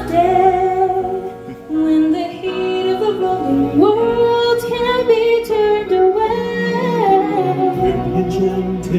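Live show music: a woman sings long, held melodic notes over backing music, stepping up to a higher note about four seconds in.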